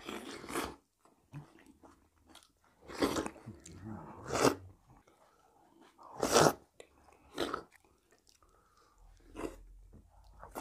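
A person eating close to the microphone: chewing with a series of short, crunchy bites, about seven in all, spaced one to two seconds apart.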